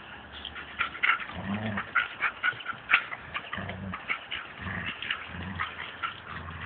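Two dogs at play over a tug toy: about five short, low growls, over scuffling and claws clicking on the paving.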